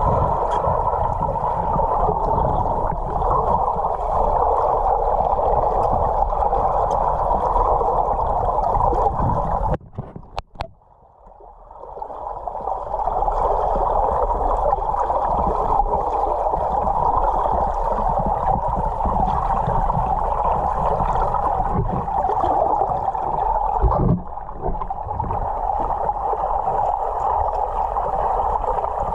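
Muffled underwater noise picked up by a camera in a waterproof housing: a steady rushing sound that drops out briefly about ten seconds in, with a single knock about twenty-four seconds in.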